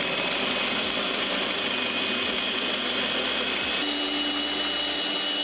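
Electric food chopper running steadily, its blade grinding onions, ginger and garlic into a paste. The motor's whine shifts slightly in pitch about four seconds in.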